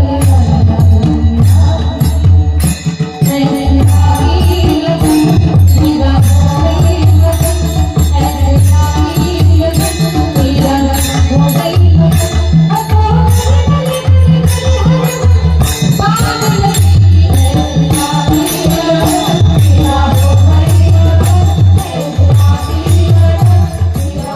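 Marathi devotional bhajan music: voices singing a melodic line over a steady beat of deep pakhavaj drum strokes and jingling percussion.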